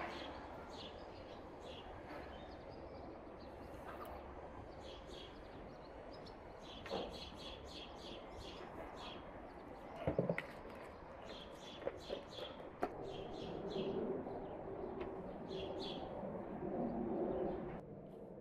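Small birds chirping repeatedly in the background, over a few sharp knocks. In the last few seconds, a louder rustling comes in as hands mix milk into flour in a large enamel bowl, stopping suddenly just before the end.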